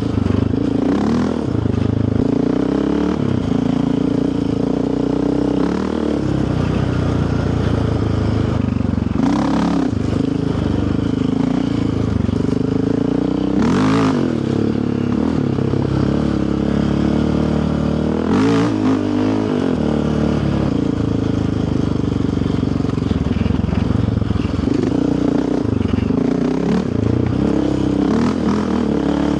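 Yamaha Raptor 700R quad's single-cylinder four-stroke engine running, its pitch rising and falling as the throttle works over a rough trail, with the rattle of the machine over bumps. Three sharp knocks stand out along the way.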